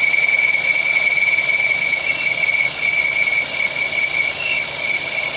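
Volkswagen Polo engine idling with a steady high-pitched whistle, the 'crying' that comes back once the oil filler cap is refitted. It is caused by a faulty diaphragm in the oil filler cap.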